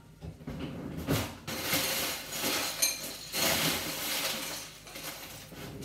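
Kitchen dishes and utensils clattering as they are handled and moved about, with a knock about a second in and a short ringing clink a little under three seconds in.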